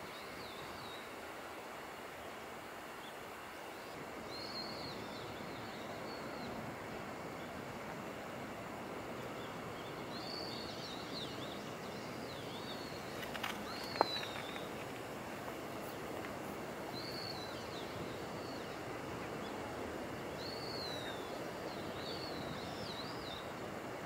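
A small bird calling in short, high, arched chirps, in scattered clusters over a steady background hiss. A single sharp click sounds about halfway through.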